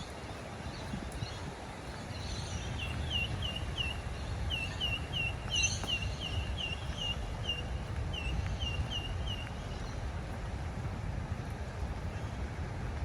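A bird calling a run of short, repeated chirps, about three a second, that starts about three seconds in and stops after about six or seven seconds. Under it runs a steady low rumble of wind and outdoor background.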